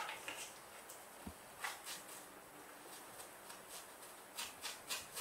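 Faint, irregular light clicks and taps of hard plastic as a young monkey handles the wheels of an upturned plastic toy truck, with a single low thump about a second in.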